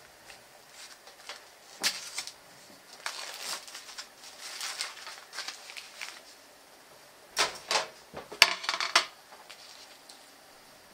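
A kitchen knife slits the plastic film over a tray of raw chicken breasts, and the film crackles and rustles as it is peeled back. The sound comes in irregular bursts, with the loudest sharp crackles about seven to nine seconds in.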